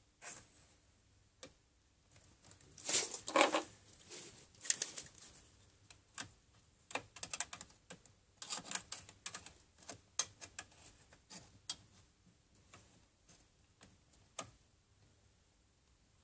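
Needle-nose pliers and small metal parts clicking and scraping against an aluminium scooter engine crankcase in irregular light taps, while a small tube is worked into place. A louder scuffling scrape comes about three seconds in, and the clicks come thickest in the middle.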